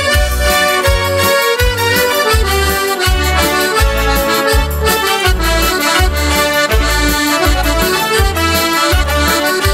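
Accordion playing an instrumental break in a Slovak folk tune, its melody running over a steady bass beat.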